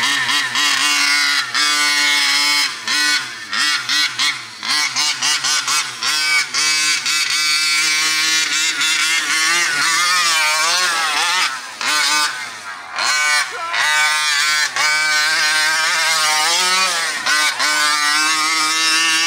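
TMR Performance 49cc two-stroke engine with its expansion pipe, in a Primal RC Raminator large-scale RC monster truck, revving up and falling back again and again as the throttle is worked. There is a quick run of short throttle blips in the first few seconds, then longer pulls with rising and falling pitch.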